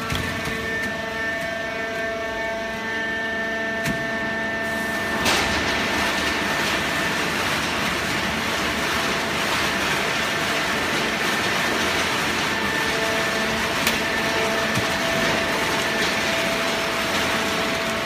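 Automatic horizontal hydraulic baling press running, a steady machine noise with a faint whine in it. About five seconds in, a louder, even rushing noise joins and carries on.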